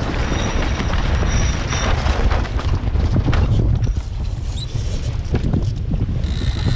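Wind buffeting the microphone aboard a sailboat under way: a low, uneven rumble with a rushing hiss over it that eases a little over halfway through.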